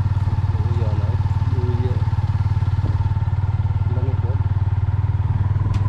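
Small motorcycle engine running at a steady cruise, a continuous low drone of rapid even firing pulses.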